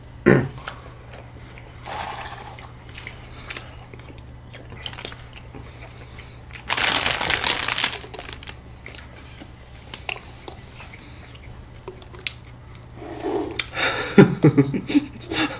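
A clear plastic pastry bag crinkling loudly for about a second, some seven seconds in, with faint chewing and small clicks of eating around it.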